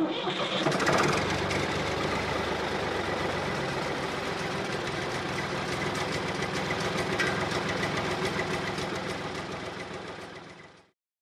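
An engine running steadily at idle, fading out near the end.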